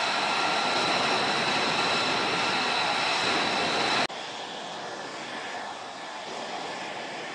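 Lockheed Martin F-35 Lightning II's single jet engine running on the ground: a steady high turbine whine over rushing jet noise. About four seconds in the sound drops suddenly to a quieter, softer whine.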